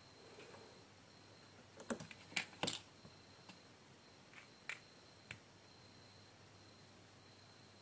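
Light, sharp clicks and taps of small tools on a phone being worked on, about six of them scattered through the middle, the loudest a quick group of three.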